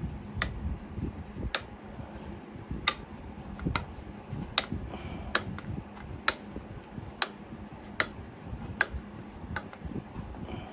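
A steady series of light, sharp clicks, roughly one a second, as the metal tang of a small garden trowel is worked into its new wooden handle.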